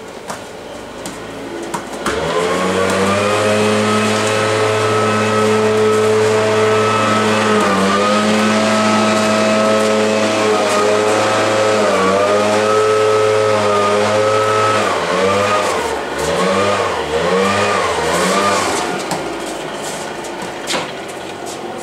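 Gas-powered backpack leaf blower starting up about two seconds in and running at a steady throttle, then revving up and down several times near the end before easing off.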